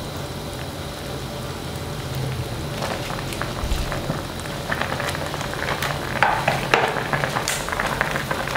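Beef bone soup simmering in a steel wok, bubbling and crackling steadily. From about halfway in, bok choy is laid on top, adding soft rustles and clicks.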